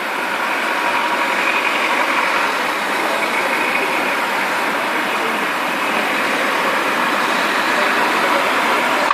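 Steady noise of road traffic: vehicles running past on a road.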